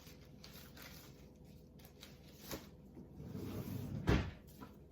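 Faint rustling and handling of disposable gloves being fetched and pulled on, with a few light ticks and one soft thump about four seconds in.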